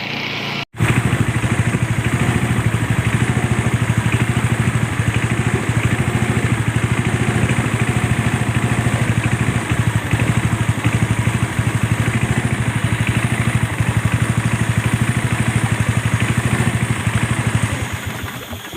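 Yamaha MZ200 single-cylinder engine of a longtail fishing boat running steadily at constant speed. It drops out briefly under a second in and fades away near the end.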